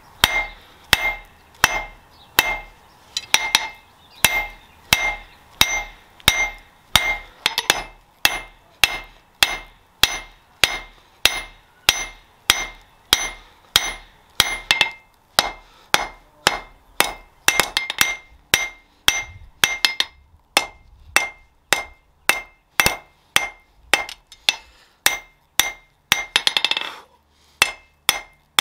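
Blacksmith's hammer forging steel on an anvil: steady blows at about two a second, each with a bright metallic ring. Near the end comes a quick flurry of rapid hits, then a short pause.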